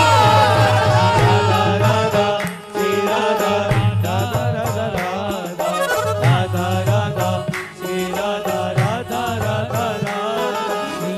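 Background music in a traditional Indian style: an ornamented melody with sliding notes over a steady low drone and regular percussion strikes.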